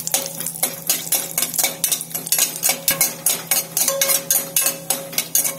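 A metal spoon stirring cashews frying in ghee in an aluminium pressure cooker, scraping and clinking against the pan bottom in quick, even strokes, about three or four a second.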